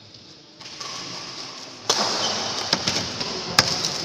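Badminton rackets striking a shuttlecock during a fast doubles rally: a few sharp cracks less than a second apart from about two seconds in, echoing in a large hall over rising background noise.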